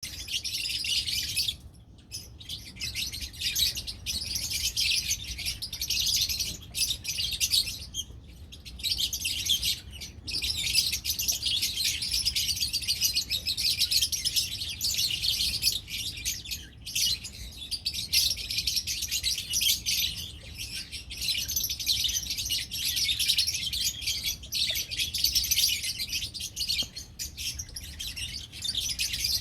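Many lovebirds chirping and chattering together in a dense, continuous high-pitched twitter, with brief lulls about two, eight and ten seconds in.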